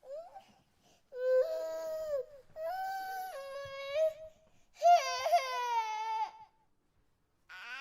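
Infant crying: a short whimper, then three drawn-out cries with brief breaks between them, the third the loudest and wavering in pitch. After about a second of silence a new cry begins near the end.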